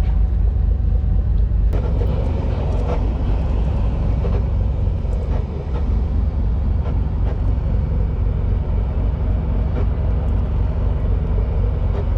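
Charter fishing boat's engine running steadily, a low drone heard from on board.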